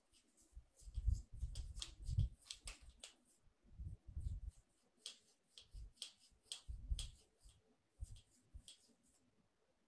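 Irregular light clicks and taps with dull low thumps, as hands work at a small plastic cup.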